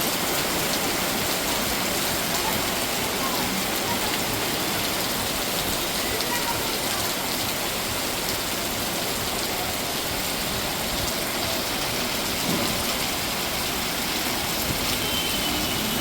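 Torrential rain pouring down steadily, a dense even hiss of heavy rainfall.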